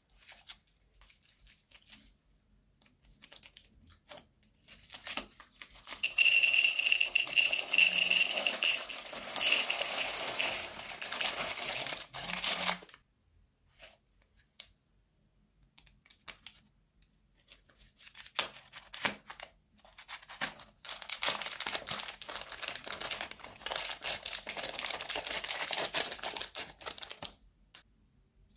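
Small plastic beads pouring out of a plastic piping bag into a bowl, a rattling, crinkling pour lasting several seconds. After a pause, the plastic bag crinkles again for several seconds as pom-poms are squeezed out of it.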